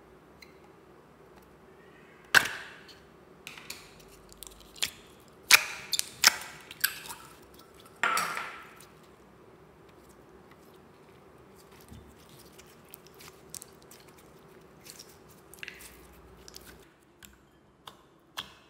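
Clear glitter slime being squished and stretched by hand in a glass bowl, giving sharp wet pops and clicks. The loudest come in a burst a few seconds in, then softer ones follow.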